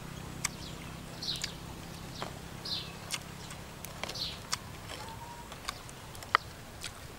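A bird gives short falling chirps, three of them about a second and a half apart, among scattered sharp clicks and ticks, the loudest of them a little past six seconds in.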